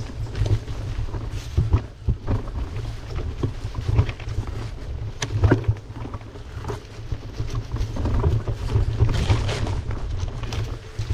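Wind buffeting the microphone during a bicycle ride: a low rumble that swells and dips unevenly, with a few scattered clicks and rattles.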